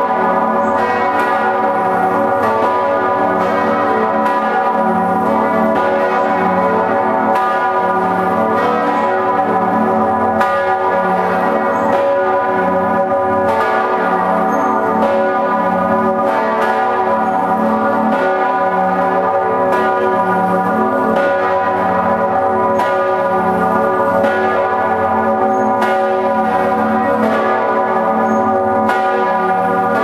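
Full peal of ten bronze church bells cast by Otto in 1951, tuned from F sharp up to high C sharp, all swinging and ringing together, heard close up in the bell chamber. Irregular clapper strikes, about one or two a second, land over a dense, continuous mass of overlapping bell tones.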